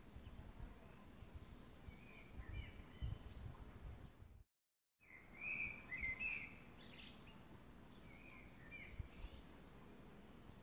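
Small birds chirping faintly in short bursts of calls over a low outdoor hiss, in three groups. The sound cuts out completely for about half a second near the middle.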